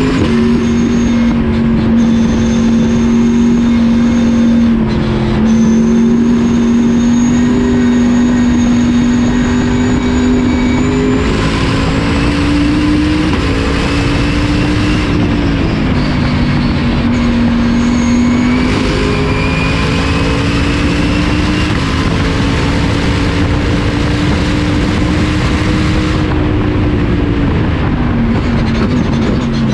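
Corvette race car's V8 at full throttle, heard from inside the cabin. The engine note climbs slowly through long pulls and steps or drops a few times, about 5, 11 and 15 seconds in and again near the end, over steady road and wind noise.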